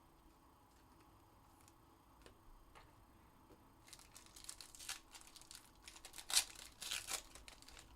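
Foil card-pack wrapper being torn open and crinkled: a few faint clicks, then from about halfway a run of crackling tears and crinkles, the loudest about three quarters of the way through.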